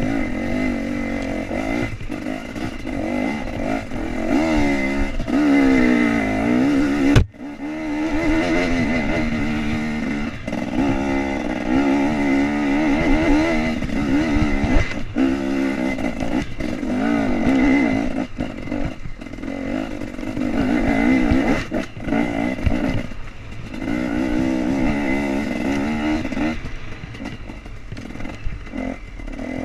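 KTM 250 EXC's single-cylinder two-stroke engine revving up and down as the bike is ridden over a rough dirt trail. About seven seconds in there is a sharp click and a brief drop in the sound.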